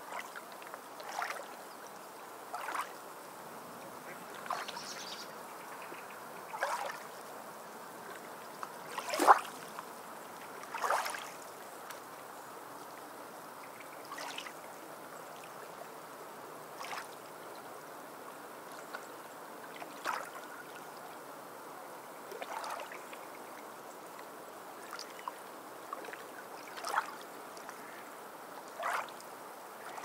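Small waves lapping on a pebble beach: a steady soft wash with short splashes every second or two, the loudest about nine seconds in.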